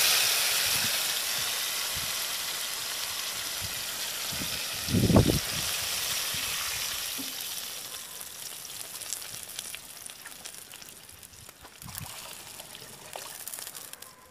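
Pot of chicken-leg soup on a wood fire, hissing and sizzling, the hiss starting suddenly and slowly dying down. A single low thump about five seconds in.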